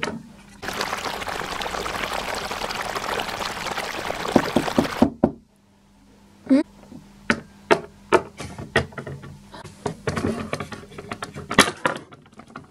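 Water running from a tap for about four and a half seconds, then cutting off. A string of light, sharp knocks and taps follows.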